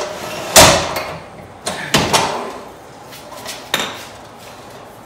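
Metal boom of a SpitzLift truck-bed hoist clanking as it is handled on a concrete floor: about four sharp knocks, the loudest about half a second in, with scraping between.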